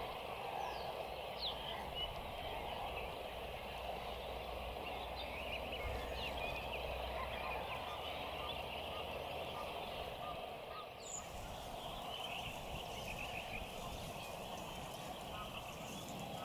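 A dense, continuous chorus of many overlapping animal calls, with short bird chirps above it.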